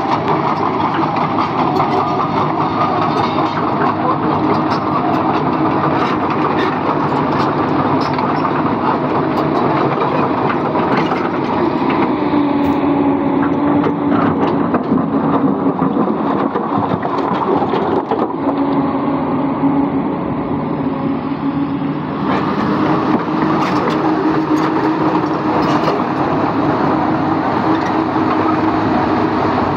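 Komatsu PC200 crawler excavator's diesel engine running steadily under work, with scattered metallic clanks and knocks. A steady whine, typical of the hydraulics under load, stands out for several seconds midway.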